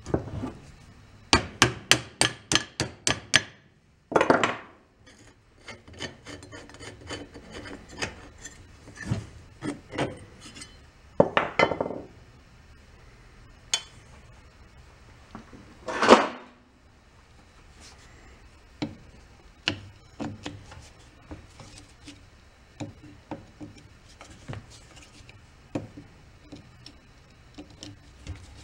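Metal hand tools working on the propeller and lower unit of a 1937 Sears Waterwitch outboard motor. There is a quick run of about nine sharp metal clicks just over a second in, then intermittent scrapes, clinks and knocks of pliers and a screwdriver on the hub and gear housing. The loudest is a long scrape just past the halfway point.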